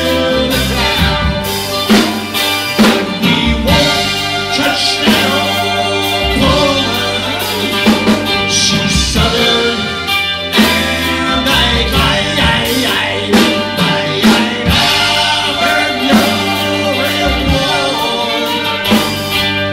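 Live rock trio playing: electric guitar, bass guitar and drum kit, with a voice singing at times.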